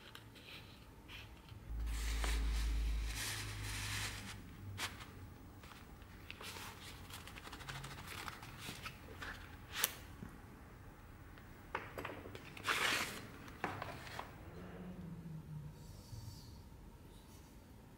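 Hands handling a thick leather knife sheath: leather rubbing and scraping with scattered sharp clicks, a low thump about two seconds in, and the restored survival knife drawn out of the sheath.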